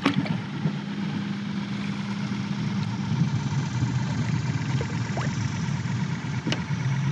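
A steady low mechanical hum, like a motor running, with a sharp click at the start and another about six and a half seconds in.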